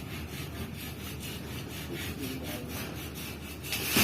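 Hand saw cutting through a green tree branch, quick back-and-forth strokes at about four a second. A louder rushing, crackling swell comes right at the end.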